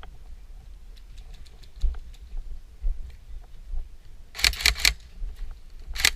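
Airsoft gun firing a short burst of about five rapid shots a little over four seconds in, with another burst starting at the very end. Before that there is only low rumble and faint ticking of gear handling on the microphone.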